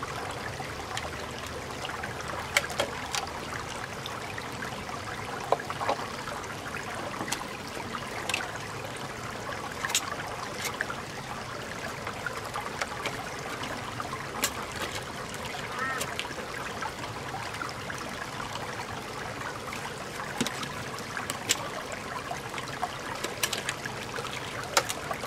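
Shallow stream water trickling over rocks, with sharp, scattered clicks every few seconds from a knife working against a large freshwater mussel's shell.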